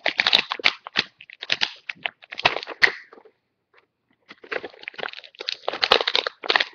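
Crinkling and crackling of toy packaging being handled, with sharp clicks, in two bouts separated by a short pause about three seconds in.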